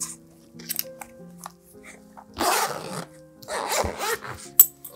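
Zipper of a canvas pen case being pulled shut in two long zips about a second apart, followed by a short sharp click near the end. Soft background music plays underneath.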